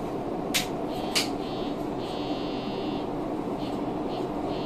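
Electric commuter train creeping forward along the platform to correct a stop that fell short of its marked position, over a steady low running noise. Two short sharp sounds come in the first second or so, and a brief high whine about two seconds in.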